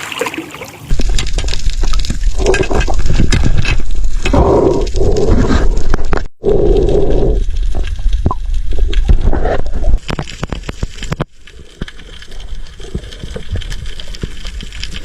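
Muffled water noise with a heavy low rumble and sloshing swells, breaking off for an instant about six seconds in and turning quieter and hissier after about ten seconds.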